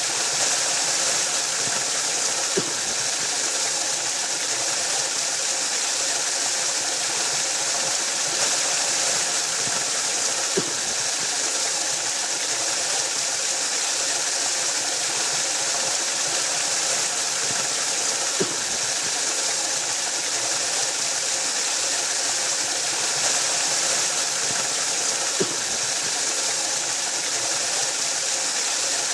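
Waterfall rushing steadily, a dense hiss of falling water. Four faint low knocks come about eight seconds apart.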